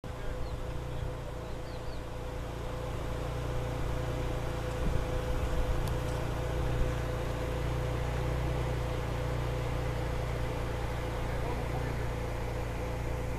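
A steady low engine rumble with a constant mid-pitched hum, like a machine running at a distance, with a few louder knocks about five to seven seconds in.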